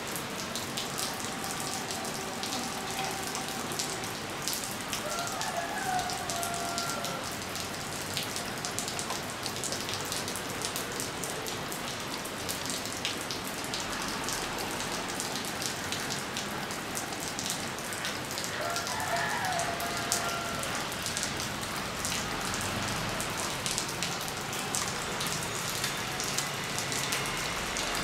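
Steady rain falling on a wet concrete rooftop and into shallow puddles, with many small drop ticks.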